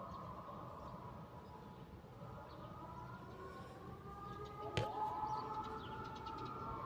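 A siren wailing, its pitch sliding slowly up and down around a high middle tone. One sharp click sounds about two-thirds of the way through.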